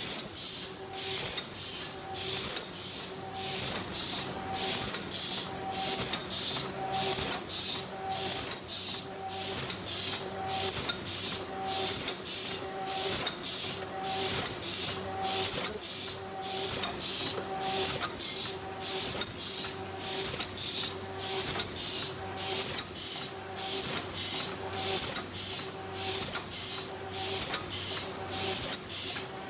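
Paper bucket forming machine running, with a regular machine stroke about once a second. Each stroke carries a sharp hiss over a steady pitched hum, one cycle per bucket formed.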